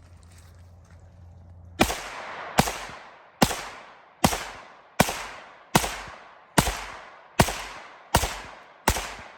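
CZ Scorpion Evo 9mm firing ten shots in steady semi-automatic succession, about one every 0.8 seconds, starting about two seconds in; each shot trails off in a short echo.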